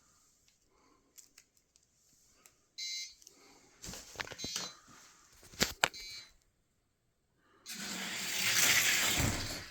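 Diecast car race on a gravity derby track: electronic beeps about three seconds in, then scattered clicks and rattles, then a rising rushing rumble of wheels on the track near the end, the loudest part.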